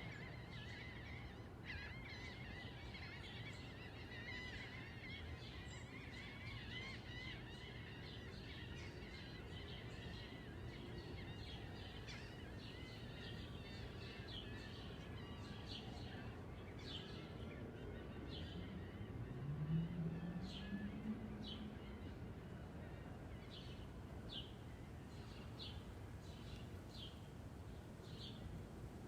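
Backyard ambience of small birds chirping, the chirps coming thicker in the second half, over a steady low hum of distant traffic. About twenty seconds in, a low engine note rises in pitch and holds for a moment as a vehicle passes, the loudest sound in the stretch.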